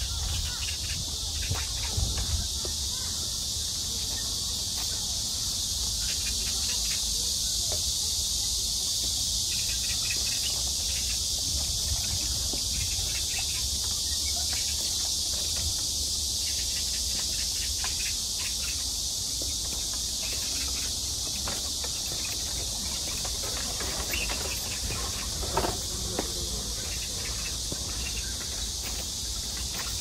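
Dense chorus of insects making a steady, high-pitched hiss, with a low rumble beneath it.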